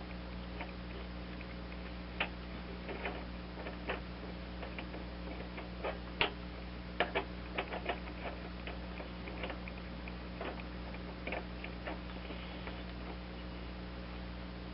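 Scattered light clicks and ticks at irregular intervals as a retainer nut and its washers are started by hand onto a mower-deck blade spindle, over a steady low hum.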